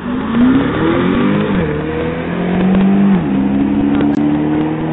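Lamborghini engine accelerating hard as the car pulls away, its pitch rising and dropping sharply at an upshift about one and a half seconds in and again about three seconds in, then holding steady.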